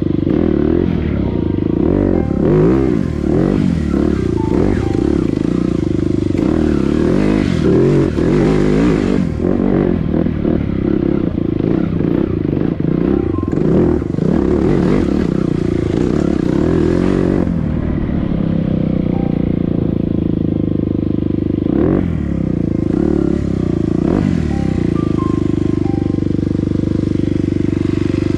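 Off-road motorcycle engine running under load, the revs rising and falling with the throttle. There are a couple of sharp knocks about three-quarters of the way through.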